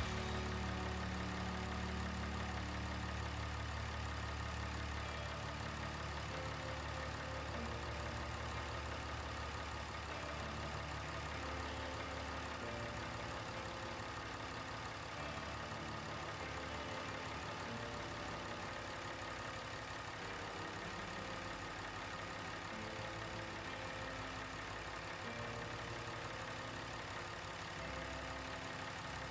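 A Ram's 6.7L Cummins inline-six turbo-diesel idling steadily with the hood open. Its low rumble eases off a little about twelve seconds in.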